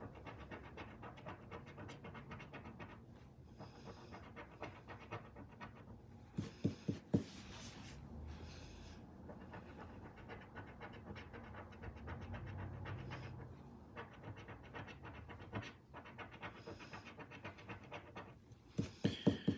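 Scratch-off lottery ticket being scratched, the coating rubbed off in many quick, rapid strokes. There are a few sharp taps about a third of the way in and again near the end.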